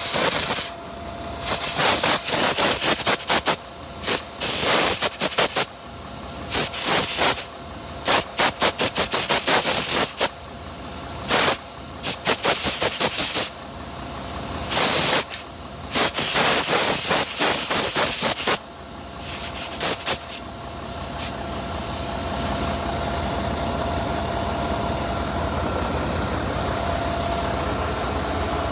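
Volvo VNL 670 semi truck's diesel engine running while compressed air hisses out in many irregular bursts, settling into a steady hiss after about twenty seconds. The hiss is an air leak in the truck's air system that the owner can hear but has not located.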